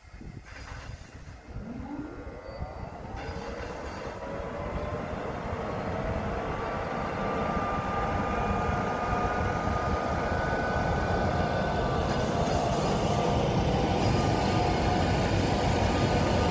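ŠKODA-built class 240 'laminátka' electric locomotive pulling away with a passenger train and coming past, getting steadily louder. A whine rises in pitch in the first few seconds, then several steady whining tones sit over a growing rumble.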